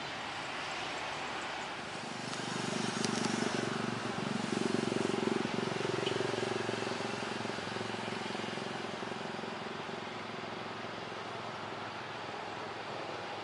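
A heavy truck's engine passing close, swelling about two seconds in and fading away over the next several seconds, over a steady outdoor hiss.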